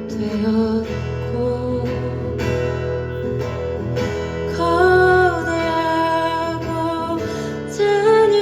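Acoustic guitar strumming chords in a slow song played live, with a held melody line coming in above it about halfway through.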